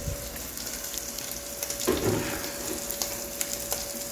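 Charque (dried salted beef) frying in a pan: a steady sizzle with fine crackles, under a faint steady hum. There is a brief knock about two seconds in.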